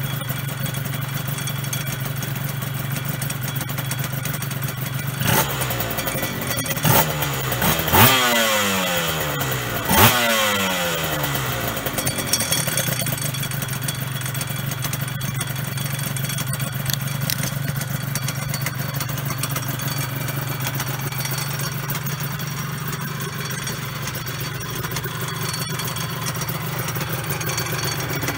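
Honda NSR250 MC21's two-stroke V-twin idling through a Tyga stainless expansion-chamber exhaust. It is blipped several times between about five and ten seconds in, the revs falling back to idle after each, then idles steadily.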